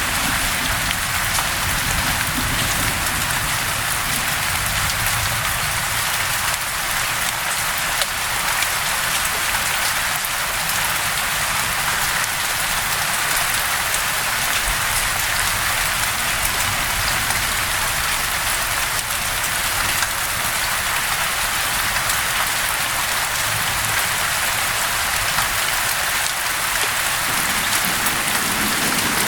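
Rain falling steadily, an even continuous patter. A low rumble runs underneath, strongest near the start and again near the end.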